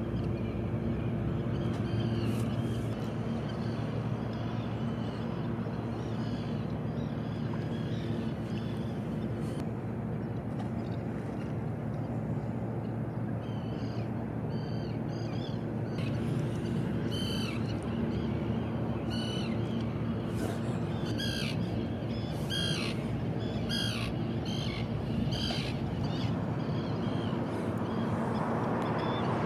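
A steady low hum, with short bird calls repeated over and over through the second half.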